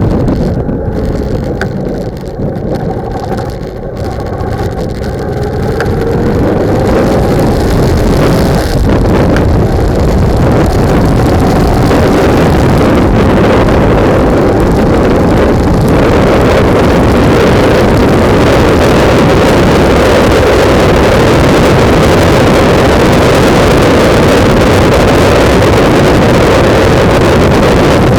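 Wind buffeting the microphone of a camera mounted on a moving motorcycle. For the first few seconds the wind eases and the motorcycle engine's note can be heard rising as it speeds up. After that, steady loud wind noise covers everything.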